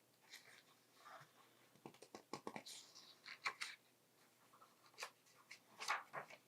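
Near silence in a small room, broken by faint scattered clicks and soft rustles.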